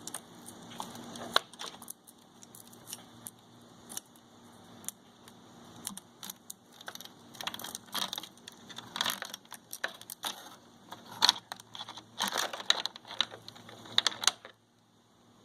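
Loose saw chain of a Remington Ranger RM1025SPS electric pole saw clinking and rattling as it is pulled off the bar and sprocket, busier in the second half and stopping about a second before the end.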